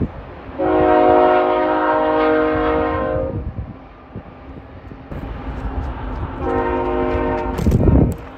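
BNSF freight train's multi-chime locomotive air horn sounding twice, a long blast and then a shorter one about three seconds later, over the low rumble of the diesel locomotives. A brief loud thump near the end.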